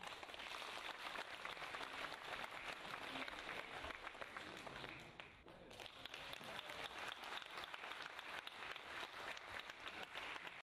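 People applauding: a dense patter of many hands clapping that dips briefly about five and a half seconds in, picks up again, and then cuts off abruptly.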